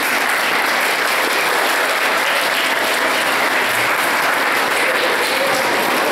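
An audience in a hall applauding steadily, a dense sustained clapping that starts suddenly at the end of a poem recitation.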